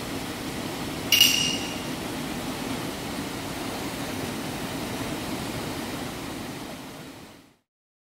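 Mountain stream water rushing steadily, with a single bright metallic clink about a second in that rings briefly.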